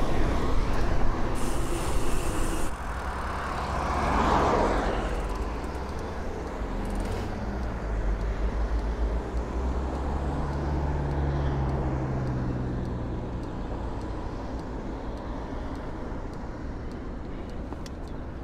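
Road traffic at a town intersection: cars driving past, one passing louder about four seconds in, with a steady engine hum for a couple of seconds around the middle.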